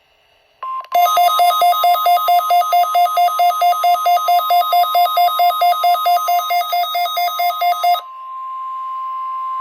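Midland WR120EZ weather radio's alert beeping rapidly, about five beeps a second, over the steady NOAA Weather Radio warning alarm tone from its speaker. About eight seconds in the beeping stops and the steady alarm tone carries on alone, quieter.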